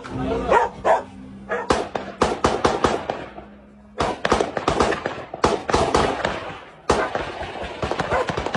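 Rapid volleys of gunfire, many sharp cracks in quick succession, breaking off abruptly and starting again twice.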